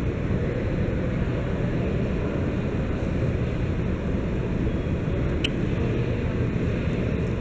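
Steady low rumbling background noise, with a single brief click about five and a half seconds in.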